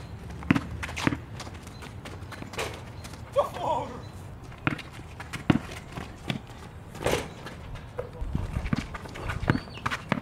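A basketball bouncing on asphalt, dribbled and played in an irregular run of sharp thumps a second or so apart.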